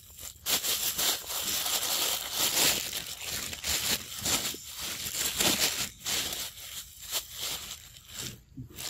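Plastic bag crinkling and rustling in irregular bursts, heaviest over the first six seconds, then thinning out.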